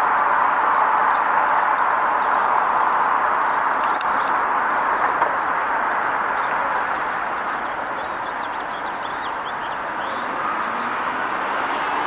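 Steady rushing outdoor background noise, with a few faint small-bird chirps over it.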